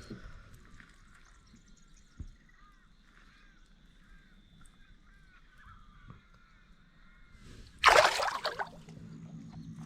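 Faint animal calls, short chirps repeating about twice a second. About eight seconds in comes a loud rush of noise lasting under a second, then a steady low hum.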